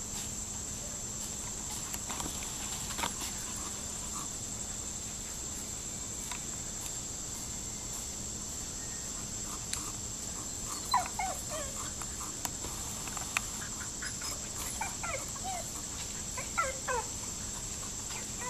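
Labrador puppy whimpering: a few short high whines, each falling in pitch, about halfway through and again near the end.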